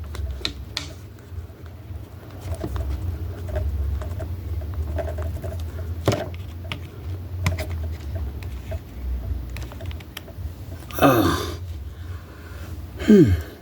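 Light clicks and taps of plastic action-figure parts and wires being handled and fitted together, over a low steady hum. Two short falling vocal sounds come near the end.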